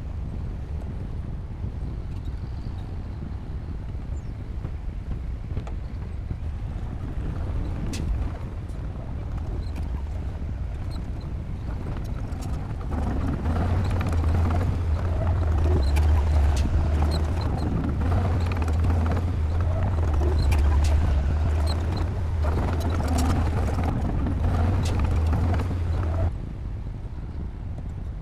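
Bulldozer's diesel engine running with a steady low rumble, with the clank of its tracks and blade. It gets louder about halfway through, then drops off abruptly near the end.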